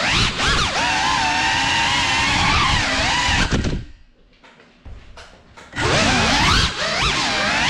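Cinewhoop FPV drone's brushless motors whining, the pitch rising and falling with throttle. About four seconds in the motors drop away almost to nothing as the drone sits on the floor, then spin back up sharply about two seconds later.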